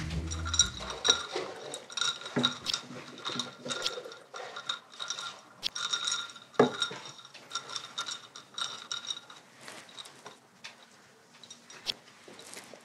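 Ice cubes clinking against a glass as an iced latte is stirred with a straw: many quick ringing clinks that thin out and grow quieter after about nine seconds.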